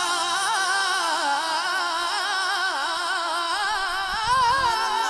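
Male voice singing a Punjabi manqabat (devotional praise-song for Ali) into a microphone: a long, drawn-out melismatic line with the pitch wavering up and down, without clear words.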